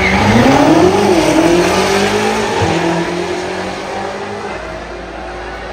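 Two BMW M8 Competition coupes' twin-turbo V8s at full throttle off a drag strip start line, engine pitch climbing with an upshift about a second in, then fading steadily as the cars pull away down the strip.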